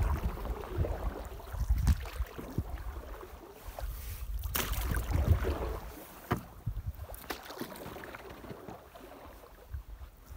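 Handling noise in a small boat while a floating gill net is hauled in: uneven low rumbling and water noise, with three sharp knocks in the middle.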